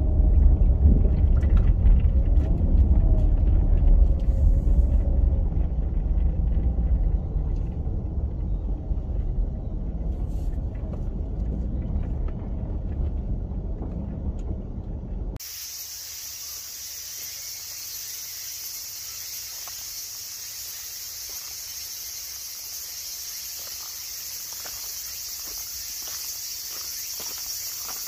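A sedan driving slowly on a rough gravel track, heard as a low rumble that gradually fades. About halfway through it cuts off suddenly to a steady high-pitched insect chorus, with footsteps on gravel near the end.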